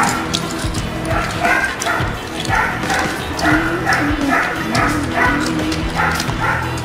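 Background music with a quick, bouncy figure repeating about three times a second over steady held low notes.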